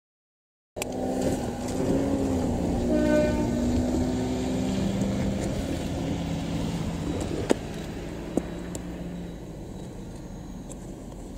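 KiHa 48 diesel railcar's engine running while the railcar stands, its pitch shifting a little at first and then settling. A brief higher tone sounds about three seconds in, and two sharp clicks come later. The sound starts abruptly and fades slowly near the end.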